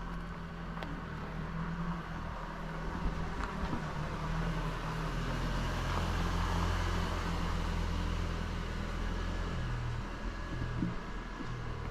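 A motor vehicle's engine running, a steady low hum that grows louder to a peak about midway and then eases off, as when a vehicle approaches and passes.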